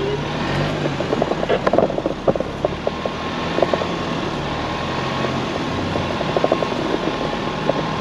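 Ford Bronco crawling slowly over a rocky off-road trail, heard from inside the cab: a steady low engine and drivetrain drone, with scattered clicks and knocks as the tyres go over rocks.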